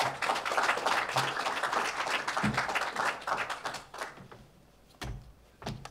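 Audience applauding, dying away after about four seconds, followed by a couple of low thumps near the end.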